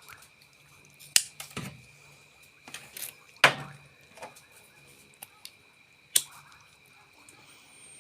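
Pocket knives being handled and set down: a string of sharp clicks and light taps at uneven intervals, the loudest about three and a half seconds in.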